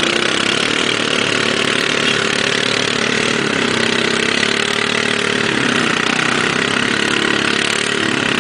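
ATV engine running steadily at low to mid revs, its pitch drifting up and down a little.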